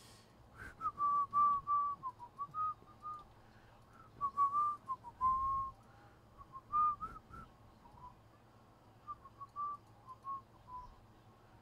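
A person whistling an idle tune of short notes with small slides in pitch, trailing off near the end.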